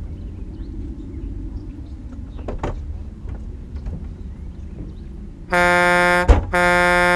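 Vehicle rumbling as it rolls across a rough field, then its horn sounds about five and a half seconds in: a long, steady blast, a short break with a thump, and a second blast.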